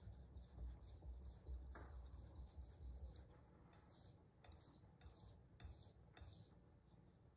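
Faint dry scraping of a Santoku knife's steel blade stroked back and forth on a sharpening stone, about two strokes a second.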